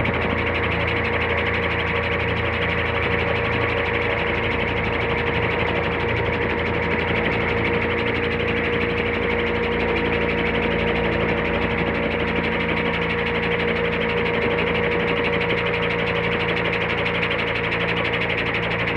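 Electric-powered Roban 800-size Airwolf scale RC helicopter, its motor and rotors running at flying speed with a steady whine as it lifts off the grass and hovers low.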